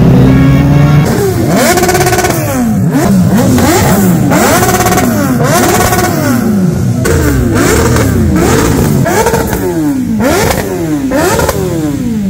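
Several superbike engines revved hard in repeated throttle blips, their pitch shooting up and dropping back about once a second, the blips overlapping one another over a steady running drone.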